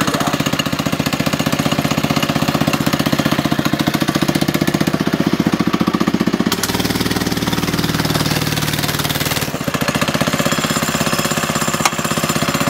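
Small single-cylinder engine of a Doodle Bug mini bike running as the bike is ridden, a fast steady stream of firing pulses. About halfway through, the pitch shifts and climbs for a couple of seconds before settling again.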